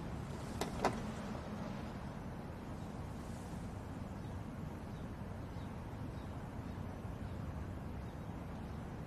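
Low, steady ambient rumble, with two sharp clicks in quick succession just under a second in.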